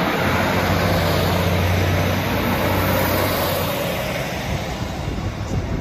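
East Midlands Railway Class 156 Super Sprinter diesel multiple unit passing close by: a steady low diesel engine hum over wheel-on-rail rumble and rushing air. The engine hum drops away a little under four seconds in as the rear car goes by, and the sound eases off.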